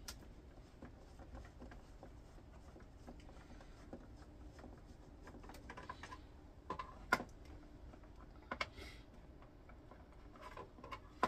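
Screws being undone by hand with a screwdriver from a plastic casing: faint scattered clicks and scrapes, with a sharper click about seven seconds in.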